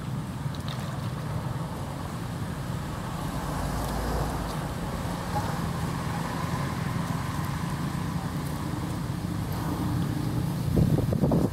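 Steady low engine hum, like running motor traffic, with a louder burst of rumbling near the end.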